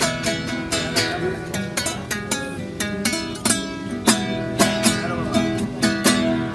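Nylon-string acoustic guitar strummed in a steady rhythm, with sharp accented strokes about twice a second.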